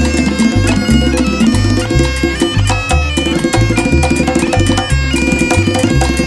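Salsa background music: a Latin orchestra's horns holding notes over a steady bass and percussion beat.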